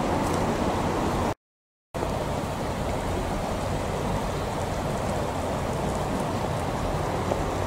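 Shallow river water rushing steadily over a stony bed. The sound cuts out completely for about half a second around a second and a half in.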